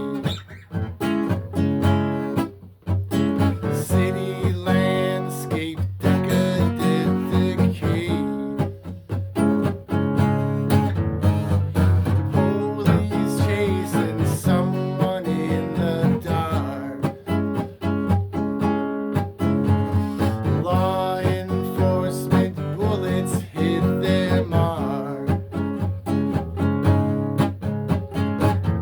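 Acoustic guitar playing, a mix of plucked notes and strummed chords, continuing without a break apart from brief dips.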